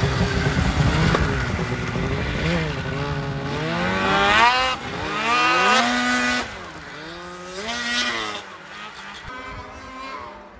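Two-stroke snowmobile engines revving up and down as the sleds accelerate through snow, their pitch rising and falling sharply. The sound drops after about six seconds, swells once more near eight seconds, then fades as the sleds ride off.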